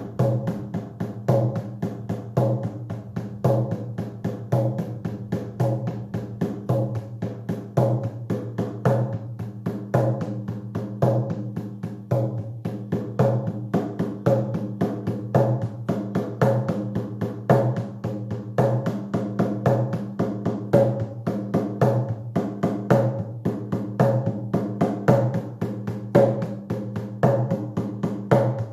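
Hand drum beaten in a fast, steady, monotonous rhythm for a shamanic trance journey, each stroke leaving a low resonant ring.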